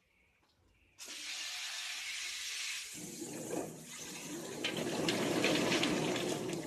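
Water spraying hard from a hose spray nozzle, starting suddenly about a second in. About three seconds in the churning of a chicken plucker's spinning drum joins it, the wet bird tumbling against the rubber plucking fingers, and the sound grows louder.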